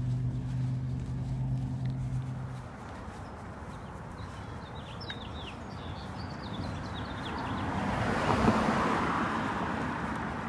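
Road traffic: a car passes on the street, its tyre and engine noise swelling to a peak about eight seconds in and then fading. A low engine hum stops after about two and a half seconds, and small birds chirp faintly in the middle.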